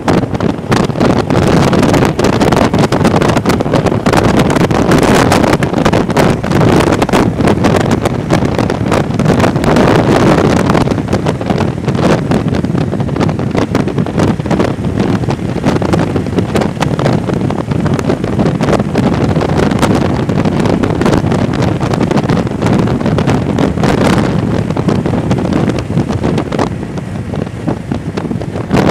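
Wind buffeting the microphone of a camera on a motorcycle riding at road speed, over the motorcycle's engine and road noise, easing slightly near the end.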